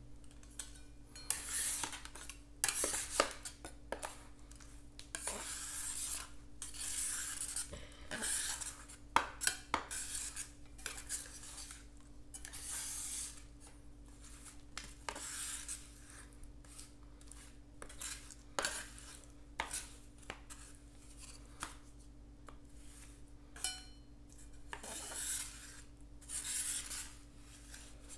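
Two metal spatulas scraping and tapping on the surface of a cold pan as they chop and spread a freezing ice cream mix, in repeated scraping strokes broken by sharp clicks.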